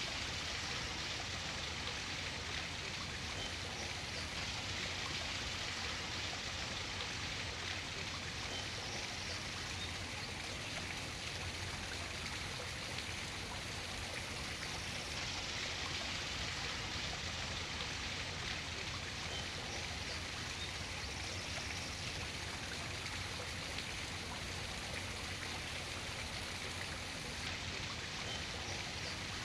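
Steady rush of running water from a small waterfall.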